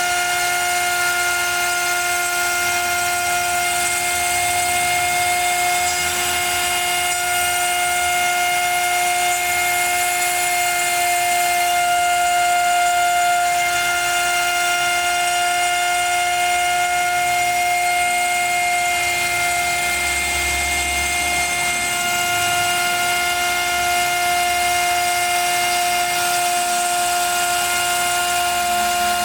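CNC router spindle running with a steady high-pitched whine while the bit cuts through MDF, over a constant rushing noise from the cut.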